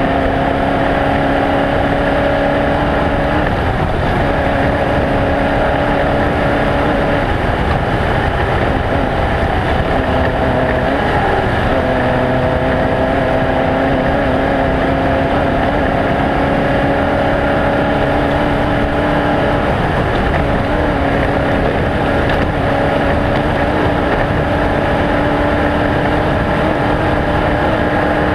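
Off-road race vehicle engine running hard with loud, steady wind and terrain noise. The engine note holds, breaks off and changes pitch several times, climbing slowly in the middle stretch.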